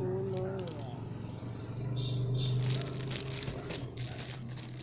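Hands handling wallets and their packaging: a dense run of rustling and small clicks that starts about two and a half seconds in, over a steady low hum.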